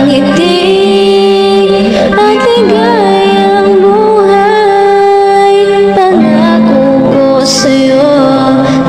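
A woman singing a slow ballad over a backing track, holding long notes with a slight vibrato; the longest note is held through the middle and ends about six seconds in.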